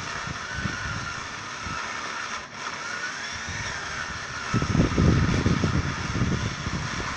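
Chainsaw running at a distance during tree felling, its pitch wavering as it works, over an irregular low rumble that grows louder for about a second and a half past the middle.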